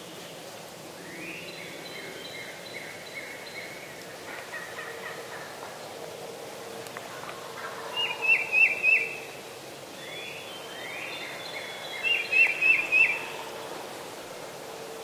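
Wild turkey calling: fainter runs of notes in the first few seconds, then two loud bursts of four sharp notes, about eight and twelve seconds in.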